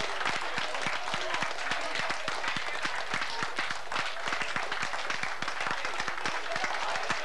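A crowd applauding: many hands clapping steadily throughout.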